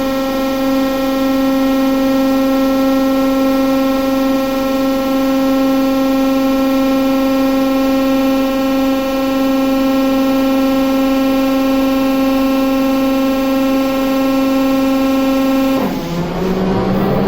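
The TEP70 locomotive's V16 diesel running with a loud, steady whine full of overtones; near the end the pitch drops suddenly and then climbs in a rising glide as the engine speed changes.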